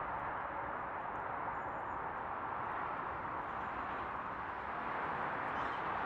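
Steady, even background rush with no distinct calls, only a few very faint high chirps.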